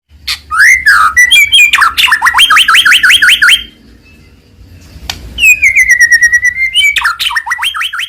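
White-rumped shama (murai batu) singing loud, varied song. First come swooping whistles, then a fast run of repeated sweeping notes. After a short lull comes one long whistle that drops and then holds, followed by another fast run of repeated notes.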